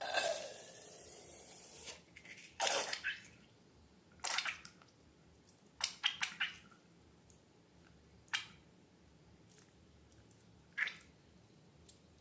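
Slime being handled: a hissing rush for the first two seconds, then a string of short wet squelches and sticky pops, with a quick cluster of them about six seconds in.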